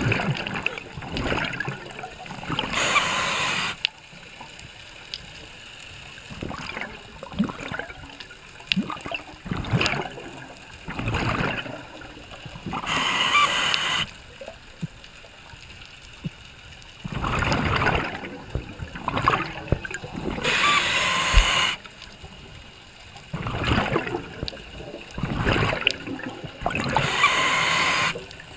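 Scuba regulator breathing heard underwater: a short hissing inhale four times, between bursts of gurgling, rushing exhaled bubbles.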